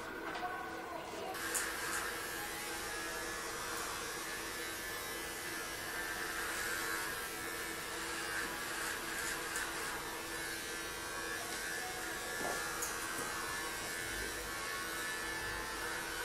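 Electric hair clippers buzzing steadily as they shave through long hair on the scalp. From about a second and a half in, a rasping hiss joins the hum as the blades cut.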